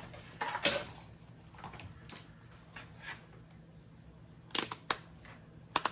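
Light clicks and clatter of a tool being handled on a workbench, most likely a multimeter being picked up and set to a voltage range: a short cluster about half a second in, then a run of sharp clicks near the end.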